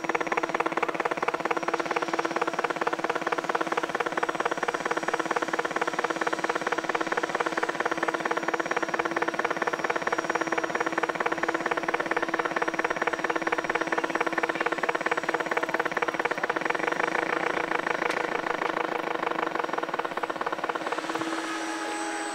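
Motor of a radio-controlled model watercraft running steadily, with a fast, even pulsing beat over a steady hum. About 21 s in the pulsing fades and a steady hum remains.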